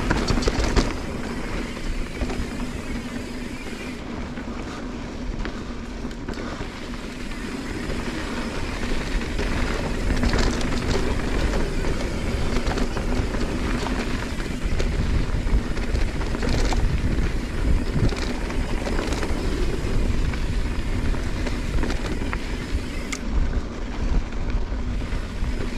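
Wind buffeting the microphone over a steady low rumble, with scattered light clicks and rattles.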